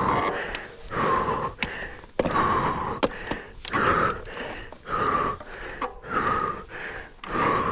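A mountain-bike rider breathing hard and fast under race effort, about one heavy breath a second. Sharp clicks and knocks come between the breaths.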